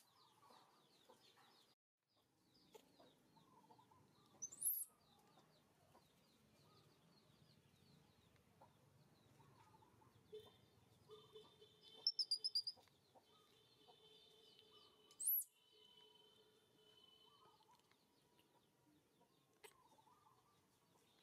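A few short, sharp, rising squeaks from a baby macaque, including a quick run of several near the middle, over faint rural background with chickens clucking.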